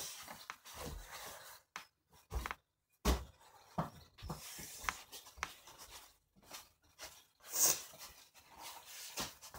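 Scattered soft thumps and light clicks of people moving about and handling things, with a short breathy hiss about three-quarters of the way through.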